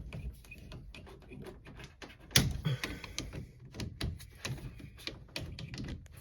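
Scattered clicks and knocks of hands working on an LG washer's cold water inlet valve, pulling off its connectors and hoses, with one sharp knock about two and a half seconds in.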